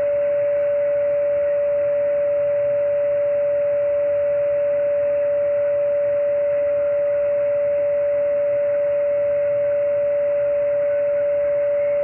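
Audio from a Belka-DSP portable shortwave receiver: a single steady whistle tone over receiver hiss, held without change.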